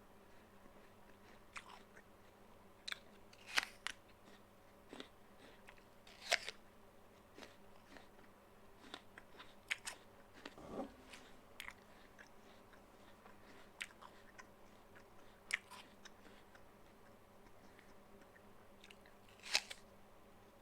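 A person biting and chewing a crisp raw apple: irregular sharp crunches, the loudest every few seconds, with softer chewing between.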